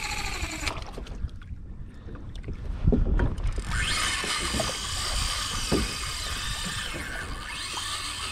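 Fishing reel's drag whining steadily as a hooked fish pulls line off, starting about four seconds in, after a stretch of water and wind rumble with a knock against the kayak.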